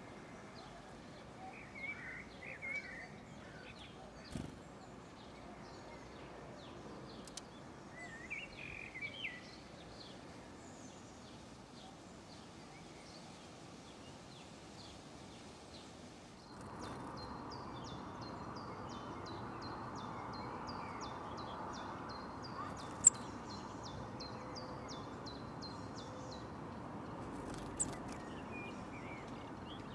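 Small songbirds calling and chirping over faint outdoor background noise. From about halfway there is a fast run of short, high repeated notes, and two sharp taps sound late on, the first being the loudest sound.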